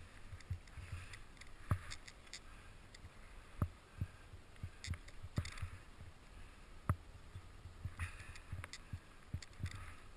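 Skis running through powder snow, a soft hiss that swells and fades with the turns, broken by irregular sharp knocks and low thumps.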